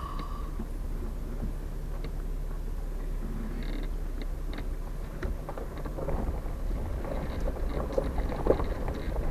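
Low steady drone of a stock Jeep crawling along a rough dirt trail, heard from inside the cab, with scattered knocks and rattles that grow busier in the second half.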